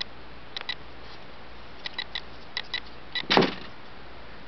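Handling noise from a plastic model car and the camera being moved: small light clicks in a few quick clusters, then a short rustling knock a little past three seconds in, over a faint steady hum.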